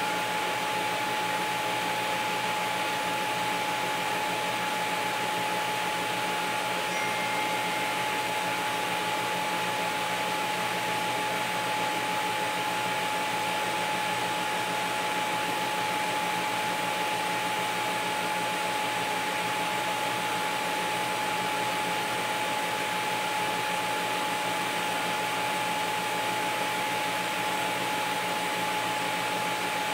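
Steady hiss of a TIG welding arc from a Miller Dynasty 350 at a set, unpulsed current, on thin-wall stainless sanitary tubing, with a steady high whine alongside it.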